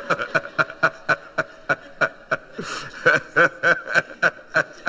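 A man laughing heartily, a long run of short 'ha' bursts at about three a second.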